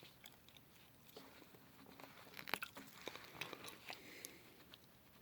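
Near silence, with faint scattered clicks and rustles of small objects being handled, a little busier about halfway through.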